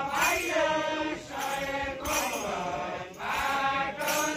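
A group of men chanting a Deuda folk song together, in long drawn-out phrases broken by short pauses.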